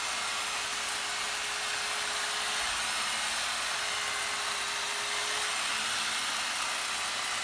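Corded electric hedge trimmer running steadily with its blades cutting along the side of a hedge: a constant motor buzz with a steady hum under it.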